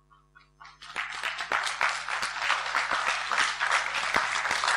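A congregation applauding, breaking out about a second in and keeping up at a steady level.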